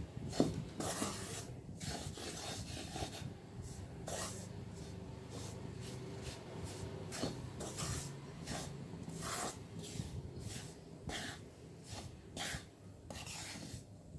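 Wooden spatula scraping and stirring crumbly wheat flour as it roasts in ghee in an iron kadai, in irregular rasping strokes about once a second.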